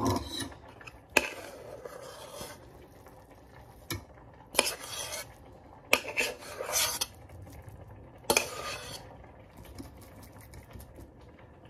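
A spoon scraping and clinking inside a stainless steel saucepan as ramen noodles are scooped out into a bowl: four sharp clinks, each followed by about a second of scraping.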